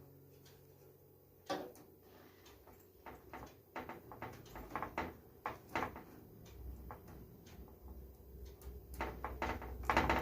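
Irregular clicks, taps and knocks of hands handling cables and parts inside a desktop PC case, the loudest near the end. A low steady hum comes in about two-thirds of the way through.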